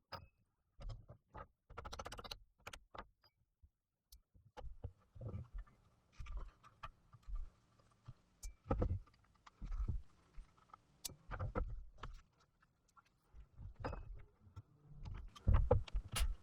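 Irregular clicks and knocks, some sharp and some dull, coming one after another with short gaps.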